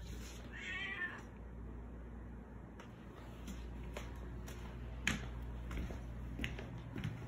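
A hungry house cat gives one short meow about half a second in, begging for food. A few light taps and knocks follow, the sharpest about five seconds in.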